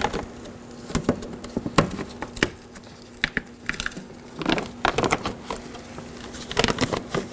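Plastic vapor barrier being peeled off a car door's inner panel: irregular crinkling and small clicks, with louder bursts of rustling about four and a half and six and a half seconds in.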